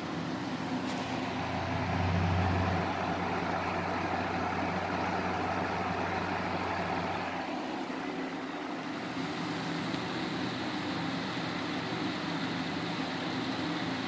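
Ultra Breeze box fan running: a steady whoosh of air with a low hum under it. About seven to eight seconds in the hum fades and the higher airy hiss grows a little.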